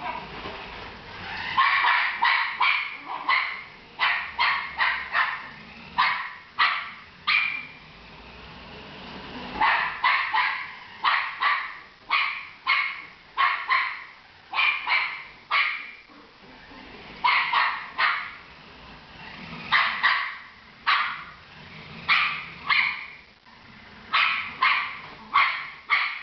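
Jack Russell terrier barking repeatedly at a remote-control car, sharp barks coming two or three a second in long runs with a couple of short breaks.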